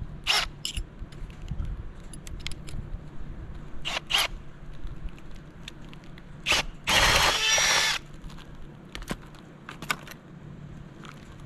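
Metal clinks of a drill bit and tools being handled, then a cordless drill runs for about a second, boring the cable hole through the roof out to 1 1/8 inch, with a few more clicks as it is set down.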